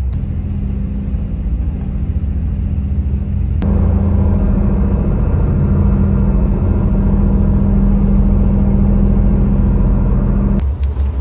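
A large engine running with a steady low drone. About four seconds in it suddenly gets louder, then holds steady until it changes abruptly near the end.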